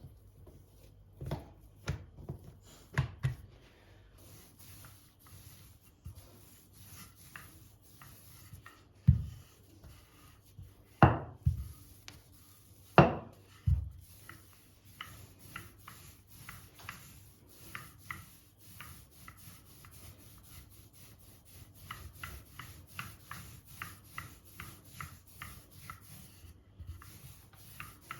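Kitchen food-preparation sounds: several sharp knocks against a hard surface, then a long run of light, rapid taps at about three a second.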